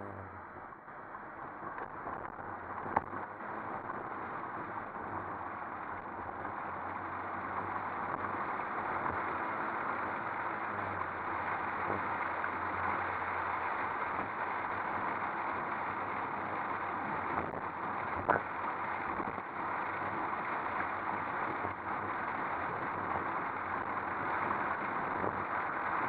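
Wind and road noise on a camera mounted outside a moving car, building over the first several seconds as the car pulls away and gains speed, then holding steady. A sharp click sounds about three seconds in and another a little past the middle.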